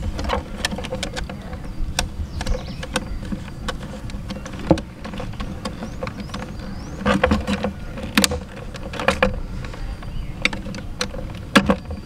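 Small clicks and taps of a screwdriver and wires against a plastic switch board as terminal screws are worked, coming in short clusters, over a steady low hum.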